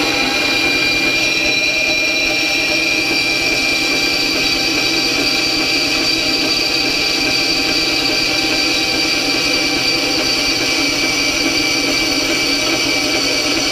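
A 10-inch benchtop bandsaw, slowed with a speed reduction pulley kit for metal, cutting through a 3/16-inch metal bar. The blade gives a steady whine over a grinding hiss as the bar is fed in.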